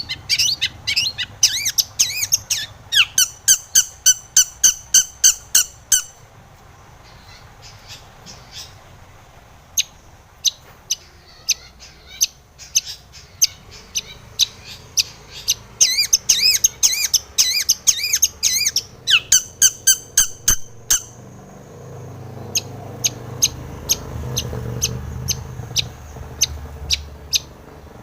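Long-tailed shrike (cendet) singing in fast runs of sharp, high, repeated notes, about five or six a second. The runs are broken by stretches of sparser, fainter notes.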